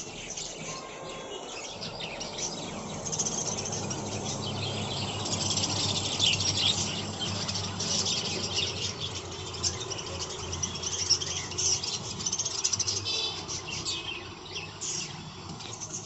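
A flock of budgerigars chattering, with many quick high chirps and warbles overlapping, getting busier and louder a few seconds in.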